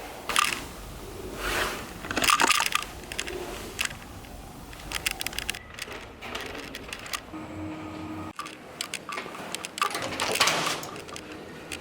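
Irregular rustling and clicking handling noises, with a brief low hum about two-thirds of the way through.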